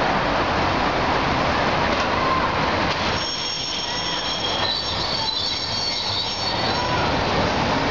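Steel wheels of a Hiroshima Electric Railway streetcar squealing on the rails, several high-pitched tones that come in about three seconds in and fade out near the end, over steady street traffic noise.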